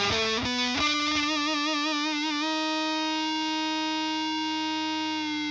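Electric guitar on its neck pickup through a Frank the Anvil FX Kitsune fuzz pedal, a modified Big Muff. A quick run of notes leads into one note shaken with vibrato, then held with long, steady fuzz sustain.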